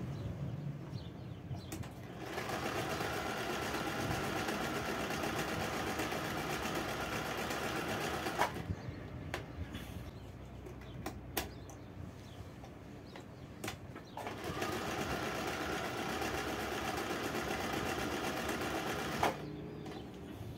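Acme 565 domestic sewing machine running in two bursts of stitching, each about five to six seconds long. A few sharp clicks fall in the pause between them.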